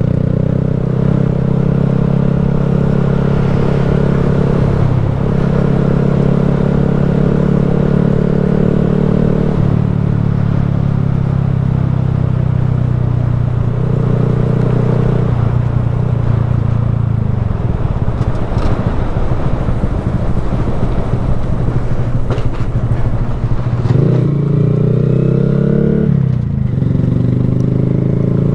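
Honda Grom's 125 cc single-cylinder engine running as the bike rides along, its note holding steady for stretches and shifting several times as the throttle is eased and reopened. In the second half the engine note fades under a rougher rushing noise for several seconds, then comes back strongly about four seconds from the end.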